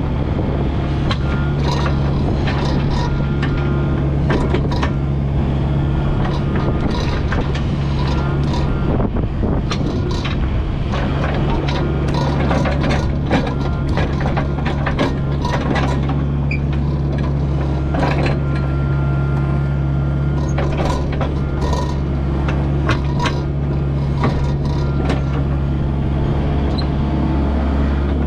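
Kubota U55-4 mini excavator's diesel engine running steadily under working load, with frequent short clanks and knocks from the machine as it digs.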